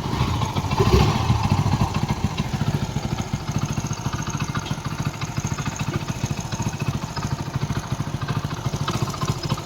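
Hero Splendor Plus's single-cylinder four-stroke engine running. It revs briefly about a second in and falls back to a steady, even idle. It is running smoothly after a rebore and full engine rebuild.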